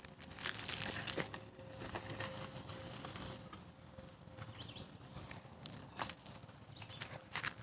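Faint, irregular crunching and rustling of dry leaves and twigs on a woodland trail, with scattered sharp snaps.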